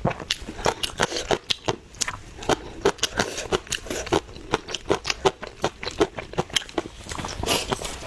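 Close-miked eating: a person chewing and biting crunchy food, with many sharp crunches and mouth clicks at an irregular pace of roughly three to five a second.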